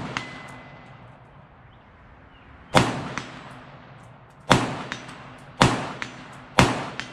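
Bushmaster XM15-E2S AR-15 rifle firing 5.56 mm rounds: four shots, the first about three seconds in and the rest about a second apart, each followed a fraction of a second later by a fainter sharp report.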